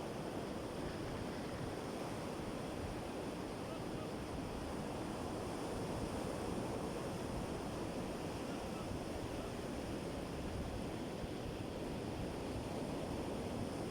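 Sea surf washing steadily onto the shore, with wind on the microphone.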